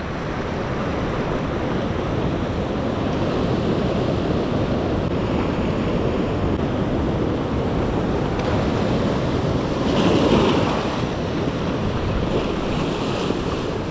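Sea surf washing in over shoreline rocks: a steady rush of breaking foam that swells to a louder wash about ten seconds in.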